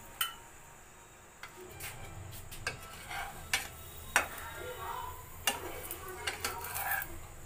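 Scattered sharp clicks and knocks of a spatula against a non-stick frying pan on a gas stove as a pizza base is worked in it, with a low steady hum underneath.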